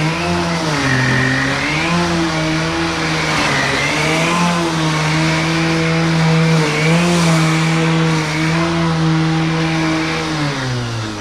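Pellenc Rasion 2 battery mower's electric blade motors running at speed, a steady whirring hum with a hiss of cutting grass. The pitch dips briefly a few times as the dual blades take load in long, thick grass. Near the end the pitch falls away as the blades wind down.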